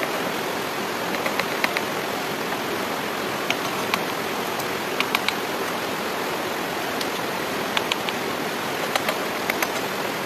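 Thin wooden sticks clicking and knocking against a stick lattice frame as they are worked into place, in small clusters of sharp taps every second or two, over a steady rushing noise.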